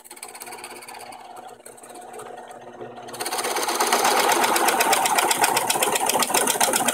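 Benchtop drill press running, then about three seconds in its 1.5-inch bit bites into a pine 2x4 and the sound jumps to a loud, fast rasping chatter as it bores the hole.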